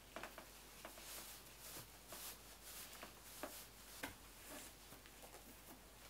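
Faint rustling of knitted leg warmers being pulled up and adjusted over tights, with scattered soft clicks.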